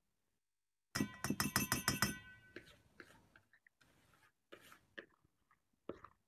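A utensil clinking and scraping quickly against a mixing bowl, with a ringing tone, as cake batter is scraped out into the baking pot. The loud clinking comes about a second in and lasts about a second and a half, followed by fainter scrapes and knocks.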